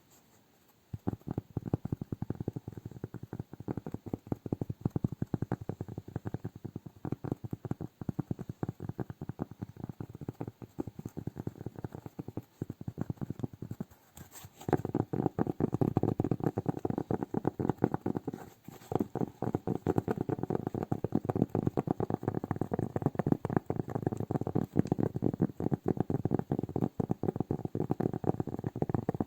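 Close-miked ASMR hand sounds: fingers tapping and rubbing in rapid, dense crackles. They start about a second in, pause briefly near the middle, then come back denser and louder.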